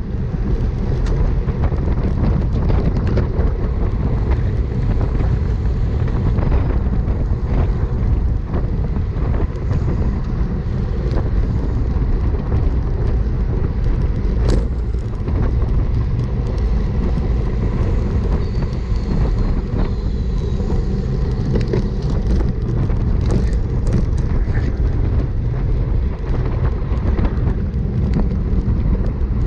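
Wind rushing over the microphone of an action camera on a road bike racing in a bunch at 20 to 29 mph: a steady, loud low rumble.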